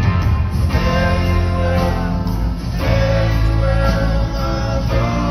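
Rock band playing live through a concert PA, heard from within the audience: electric guitars over bass and drums, loud and steady.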